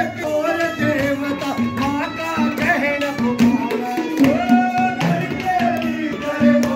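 Live Indian devotional bhajan music: a banjo melody with singing over frequent hand-played percussion on the deru drum and a clay pot (ghada).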